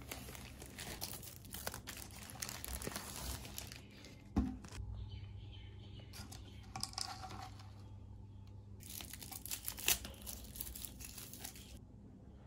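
Faint crinkling and rustling of thin plastic, with small clicks, as an iced coffee in a plastic bag and a lidded plastic cup is handled. There is a soft knock about four seconds in, and the crinkling eases off for a few seconds in the middle.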